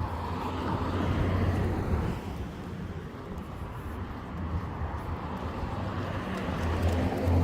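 Road traffic: vehicle engine and tyre noise with a steady low hum, swelling as cars pass about a second in and again near the end.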